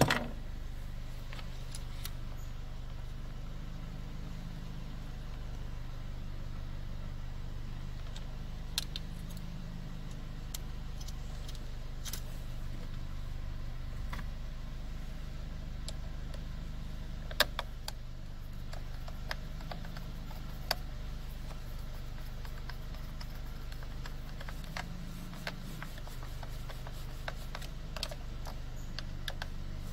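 A few small, scattered clicks and taps of a Phillips screwdriver seating and turning a screw into a steering-wheel cruise control switch, over a steady low hum.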